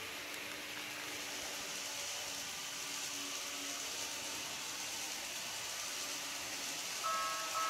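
Steady faint hiss with a low hum. About seven seconds in, a model railway level crossing's electronic warning bell starts ringing in a repeating pattern of tones: the crossing has been triggered.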